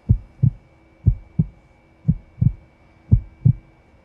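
Heartbeat sound: a low lub-dub pair of thumps about once a second, four times.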